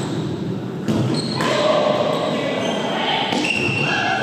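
Volleyball being struck by players' hands and arms during a rally: three sharp hits, two close together about a second in and one just past three seconds, echoing in a large gymnasium, with players calling out between them.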